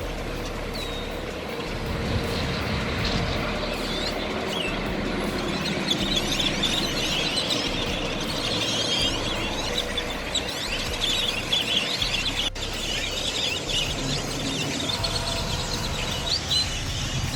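Many birds chirping and chattering at once over a steady low rumbling noise.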